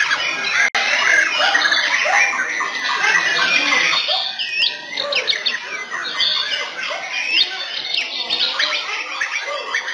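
Caged white-rumped shamas (murai batu) singing in competition, several birds over one another: a loud, continuous mix of rising and falling whistles, trills and harsh chattering notes.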